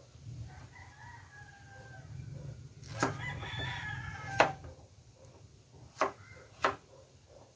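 A rooster crows twice, the second crow louder and fuller. A kitchen knife slicing potatoes strikes a cutting board in sharp knocks, four of them in the second half.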